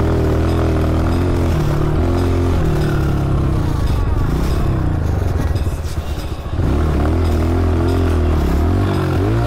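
Honda CRF125F dirt bike's single-cylinder four-stroke engine running as it is ridden on a motocross track, its pitch rising and falling with the throttle. The engine drops off briefly about six seconds in, then comes back on the gas.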